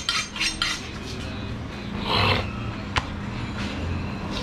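Butcher's knife being honed against another steel blade: a few quick metallic scrapes of metal on metal, then a short rasp about two seconds in and a single sharp knock about three seconds in.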